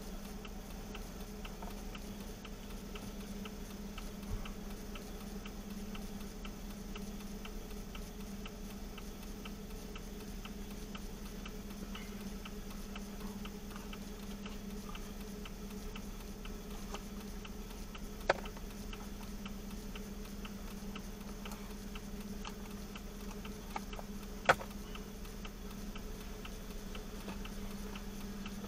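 Vehicle turn-signal or hazard flasher ticking evenly, about two ticks a second, over a steady low engine hum. Two sharper single clicks stand out later on.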